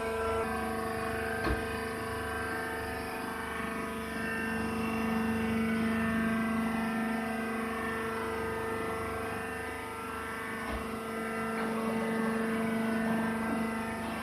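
Hydraulic press baler's motor and pump running with a steady hum made of several held tones. A single knock about a second and a half in.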